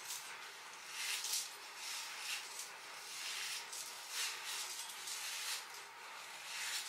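Hairbrush bristles swishing through hair in repeated strokes, about one or two a second, as the hair is brushed up and slicked into a bun.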